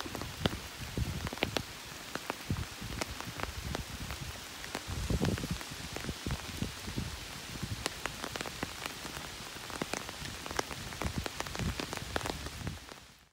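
Steady rain falling on leaves and the ground, with many distinct sharp drips close by.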